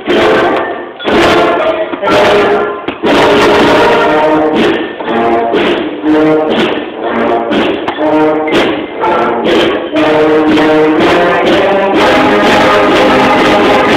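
Middle school concert band playing a Christmas piece: brass and woodwinds in full chords, with sharp percussion hits.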